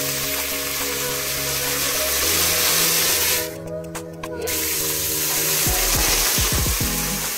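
Water poured into a pot of hot oil and fried onions, hissing and sizzling as it flashes to steam. The sizzle breaks off for about a second around the middle, then resumes.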